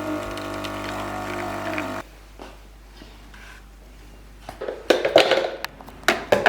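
The pump of a De'Longhi Nescafé Dolce Gusto Melody 3 capsule coffee machine buzzing steadily while brewing an espresso, then cutting off suddenly about two seconds in as the brew finishes. A few sharp knocks and clicks follow near the end, as cups are handled.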